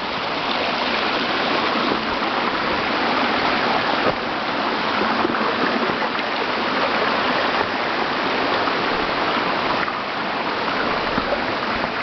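Waterfall on a rocky brook, water rushing steadily.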